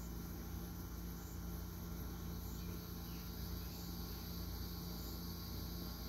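Steady chirring of insects, with a faint short chirp repeating about every second and a quarter, over a low steady hum.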